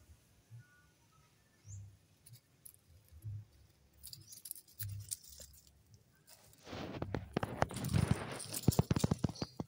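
Dry leaves and gravel crunching and rustling, dense and crackly from about two-thirds of the way in, with a few faint soft thumps before it.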